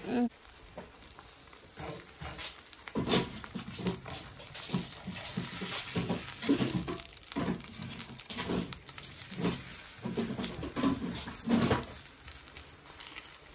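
Oil sizzling in a hot pan for birria tacos, with a quick, irregular string of short, sharp sounds about two a second from about three seconds in.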